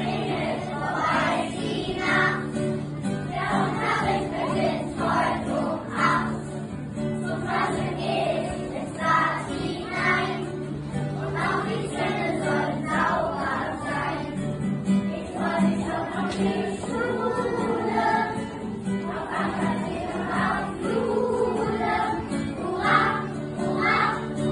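A group of young children singing a song together in unison, accompanied by a strummed acoustic guitar, in a reverberant school gym.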